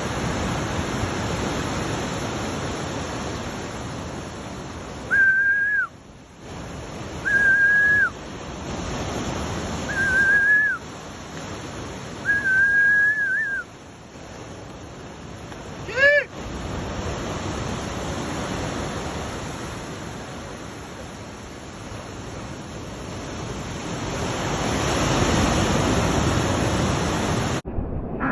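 Steady wash of ocean surf and wind on the shoreline. Over it come four short, level whistles, each falling off at its end, spread over the first half, and then one quick upward chirp.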